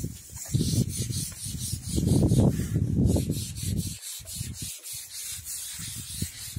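A bundle of coconut-coir rope scrubbed back and forth over wet, acid-washed ceramic floor tiles: a repeated rasping rub, loudest in the first half and lighter after about four seconds.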